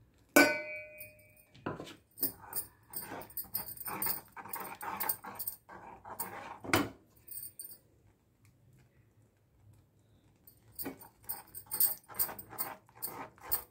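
A steel bowl clinks against the rim of a metal pan with a short ring about half a second in. Then a steel ladle stirs milk thickened with cornstarch, scraping and tapping the pan in quick irregular strokes, with a pause of a few seconds in the middle.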